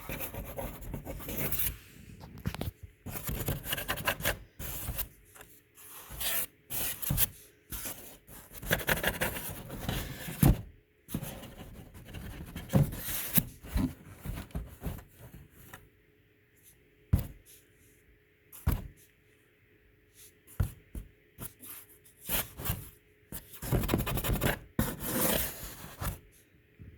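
Kitten scrabbling about in a box: irregular bursts of scratching, rubbing and scraping, with a quieter stretch in the middle and a few sharp knocks.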